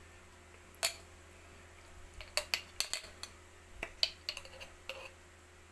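A metal spoon clinks against a stainless steel pot and a glass jar as chili garlic oil is spooned in. There is one sharp clink about a second in, then a quick run of light clinks and taps midway.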